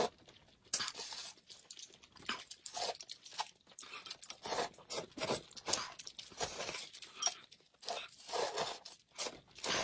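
Noodles slurped from bowls of broth in repeated short, irregular bursts, with chewing in between.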